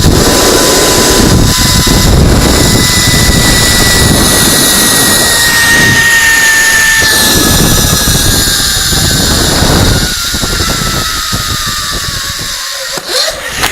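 Zip-line trolley pulleys running along the steel cable: a high whine that slowly falls in pitch as the rider slows, over heavy wind rush on the microphone. The rush drops off about ten seconds in, the whine fades soon after, and a couple of knocks come near the end.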